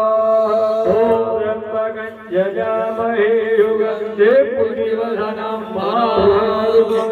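Hindu havan mantras chanted in a melodic, sing-song voice over a steady held tone, with a short pause about two seconds in. The chanting accompanies offerings being poured into the sacred fire.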